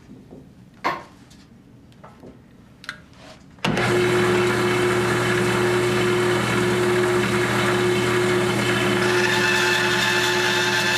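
A band saw is switched on about a third of the way in and runs steadily, a loud, even motor hum with a hiss over it. Before that there are only a few light knocks of handling, one of them sharper a little under a second in.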